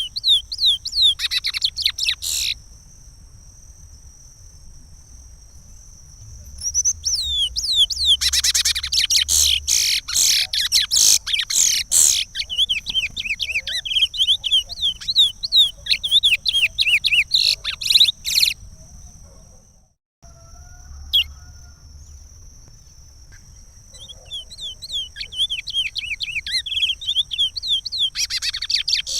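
Curió (chestnut-bellied seed-finch) singing the Pará regional song: quick runs of whistled, sliding notes in phrases, a short one at the start, a long one from about 7 to 18 seconds, and another beginning near the end, with pauses between them.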